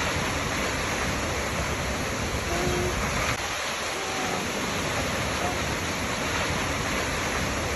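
Waterfall rushing with a steady, dense roar of falling water.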